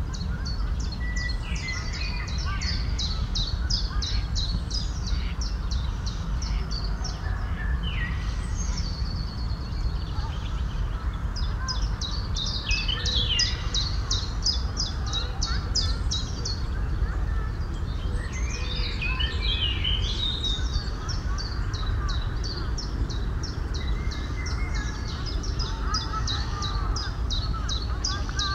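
Songbirds singing several long phrases of rapid, high-pitched repeated notes, over a steady low rumble of background noise.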